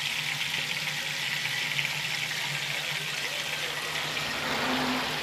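Fried rice seasoned with soy sauce sizzling steadily in a skillet on the stove, over a low steady hum. A louder rush of noise rises near the end.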